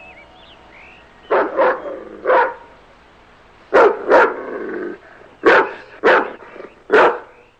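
A dog barking repeatedly: about eight loud, short barks, several in quick pairs, starting a little over a second in.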